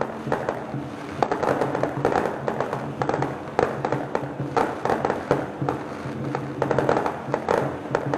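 Fireworks going off in a rapid, continuous crackle, with music playing underneath.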